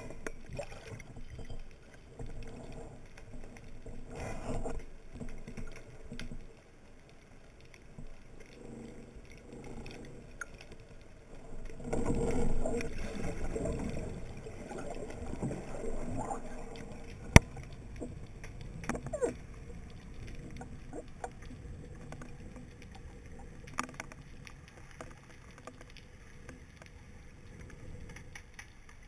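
Underwater sound heard through a camera housing mounted on a speargun: muffled water movement that grows louder about twelve seconds in and then settles. A single sharp click a little past the middle is the loudest sound, with a few fainter clicks later.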